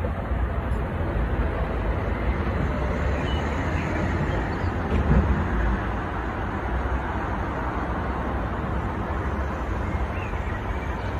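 Outdoor city ambience: a steady rushing noise with a low rumble, and faint bird chirps about three seconds in and again near the end.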